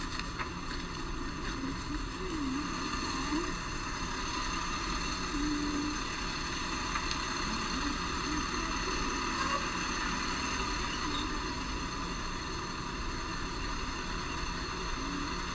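A vehicle running steadily, with a constant hum and even noise throughout.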